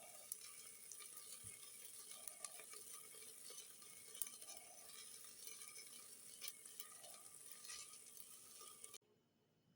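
Food frying in oil in a pan: a faint, steady sizzle with scattered clicks and light stirring strokes every couple of seconds, cut off abruptly near the end.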